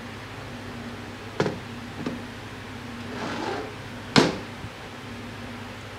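ZF 8HP transmission valve body being handled and set down on a metal workbench: two light knocks, a rustle, then one sharp knock about four seconds in as it is laid flat, over a steady fan hum.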